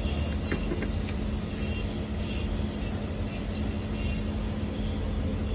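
Steady low hum of the portable reboring machine's electric motor running, with a few faint metallic clicks about half a second in.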